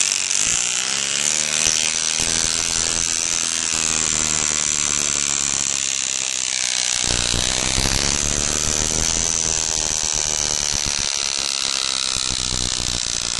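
BMX rear cassette hub (a freecoaster swapped for a cassette-type hub) freewheeling, its pawls ratcheting so fast they blur into a steady buzz. The buzz drops in pitch as the wheel slows, jumps back up about seven seconds in, then drops again.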